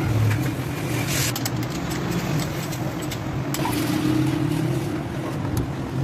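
A steady engine-like drone runs underneath, and a few light clicks and taps come from the plastic and metal headlight shell as it is handled and seated on the motorcycle's fork brackets.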